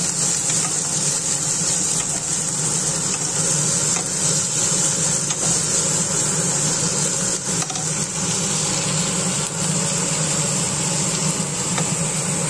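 Sliced onion, carrot and spring onion sizzling in hot olive oil in a pan, with faint scrapes and clicks as they are stirred. A steady low hum runs under the sizzle.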